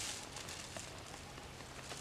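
Faint rustling and a few soft ticks as a plastic bag and a banana leaf are handled on dry leaf litter.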